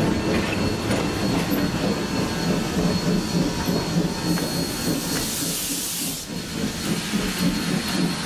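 Passenger cars of a steam-hauled excursion train rolling slowly past, wheels rumbling and clicking on the rails. From about four to six seconds in, steam hisses from the approaching Santa Cruz Portland Cement #2 steam locomotive.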